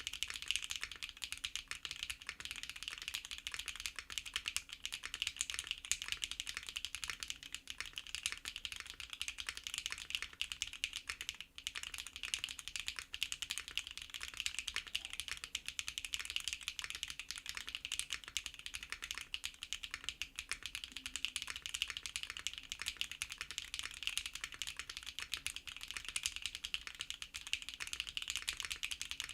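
Continuous fast typing on a NEO65 custom 65% mechanical keyboard with SAROKEYS x GEON BCP linear switches: a steady stream of crisp keystroke clicks, with one brief pause about eleven seconds in.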